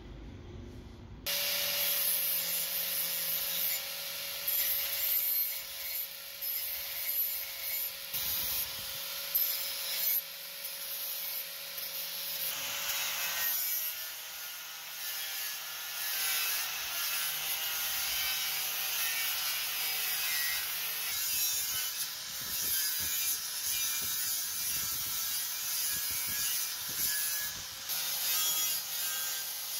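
Handheld electric angle grinder with an abrasive disc grinding the rusty steel blade of a shovel down to bare metal. A steady motor whine sits under a harsh scraping hiss, starting suddenly about a second in.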